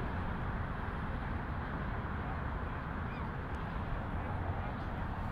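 Low rumbling wind noise buffeting the microphone, with a few faint distant high calls now and then.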